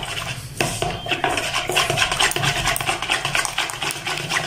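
Raw eggs being beaten by hand with a fork in a plastic bowl: rapid, continuous clicking and tapping of the fork against the bowl as the eggs are whisked.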